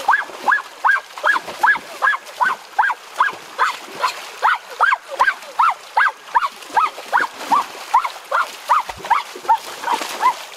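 An animal call repeated steadily, nearly three times a second, each short note rising and falling in pitch, over a faint hiss of splashing stream water.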